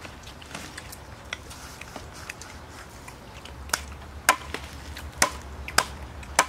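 Cleaver chopping through a roasted crocodile laid on banana leaves: faint ticks at first, then sharp strikes about twice a second from a little past halfway.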